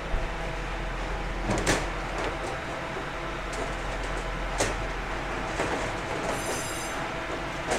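Steel baking trays and doors of a commercial deck oven knocking and scraping as a tray of pastries is slid out of a deck, a few sharp knocks over a steady hum.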